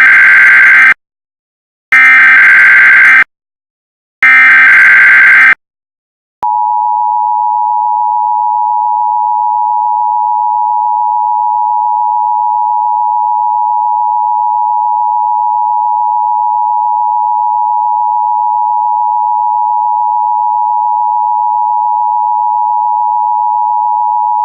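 Emergency Alert System tones: the SAME header's screeching digital data bursts, one ending about a second in and two more of about a second each with a second's gap between them, then, about six seconds in, the steady two-tone attention signal that holds on unbroken.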